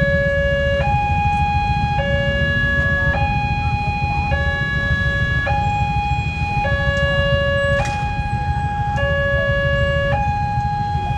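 Railway level-crossing warning alarm sounding a two-tone signal, switching between a lower and a higher tone about every second, the signal that a train is approaching the crossing. A loud, steady low rumble runs underneath.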